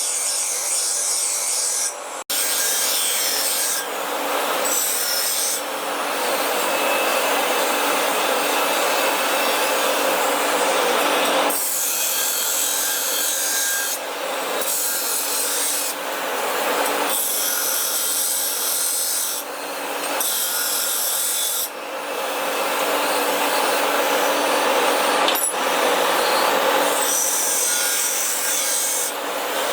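Workshop tools rasping and grinding on the work, in a run of short clips that change abruptly every few seconds, with a brief break about two seconds in.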